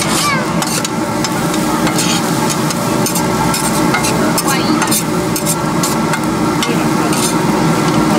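A large batch of pork fried rice being stir-fried in a wok: a metal utensil scrapes and knocks against the pan in many short, quick strokes over steady sizzling.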